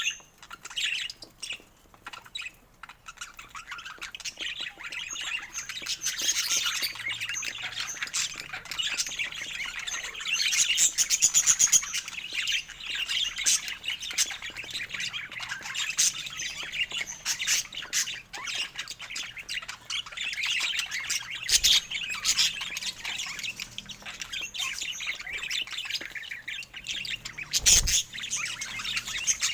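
Budgerigars chattering: a continuous stream of quick chirps, warbles and squawks.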